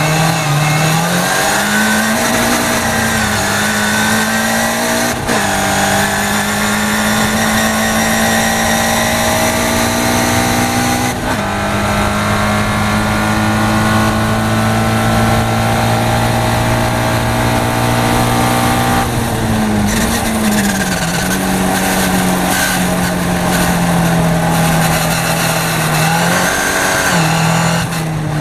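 Caterham Seven race car's engine heard from the cockpit, pulling hard through the gears with brief breaks for upshifts about 5 and 11 seconds in, then holding a steady high note at full speed on the straight. About 20 seconds in the note drops as the driver lifts off and brakes, with short dips for downshifts near the end, all over a steady rush of wind and road noise.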